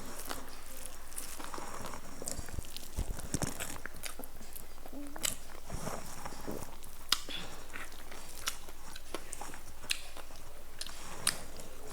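A person eating close to the microphone: chewing and biting mouthfuls of ooti, with scattered light clicks throughout.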